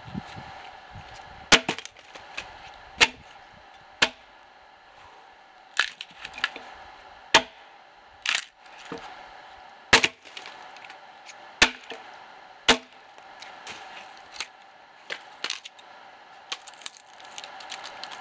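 Axe chopping into the side of a dead ash log being hewn: about nine sharp, loud blows one to two seconds apart, with the wood cracking. Fainter, lighter knocks follow near the end.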